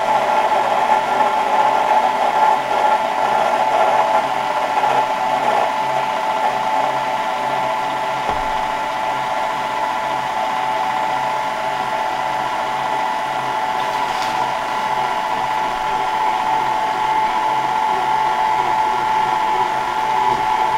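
Electric stand mixer running steadily with its paddle attachment, a constant motor whine as it beats flour into a wet bread dough.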